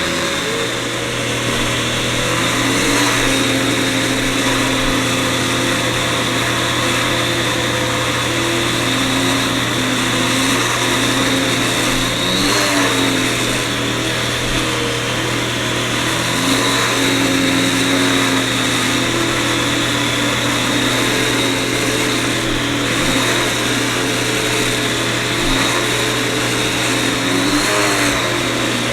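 Vacuum cleaner running continuously, a steady motor hum and rushing air, with its tone wavering up and down in pitch.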